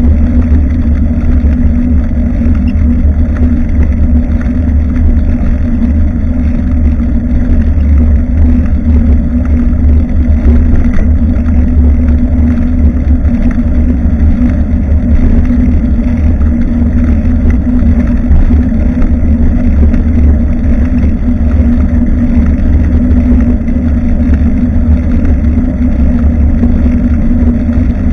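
Wind rumbling loudly and steadily on the microphone of a rear-facing action camera mounted on a moving bicycle.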